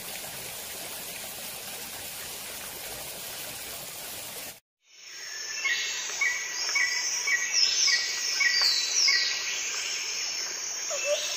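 A steady, even rush of water from a forest waterfall for about four and a half seconds, then a brief cut. After that, birds chirping over a steady high insect drone, with one short call repeated about twice a second and a few sweeping whistled notes.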